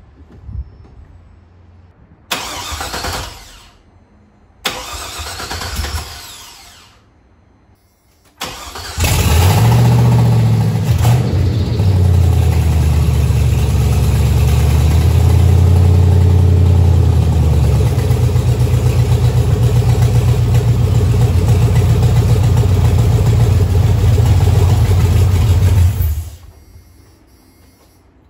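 Swapped-in GM LS V8 cranked twice on the starter without catching, then firing on the third try about nine seconds in. It runs at a fast idle that settles lower partway through and is shut off a couple of seconds before the end. This is the engine's first start after the swap and rewiring, run only briefly with no coolant in it.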